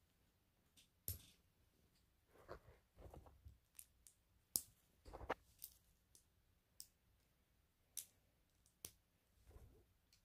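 Lego pieces being handled and snapped together: faint, short plastic clicks at uneven intervals, about a dozen in all.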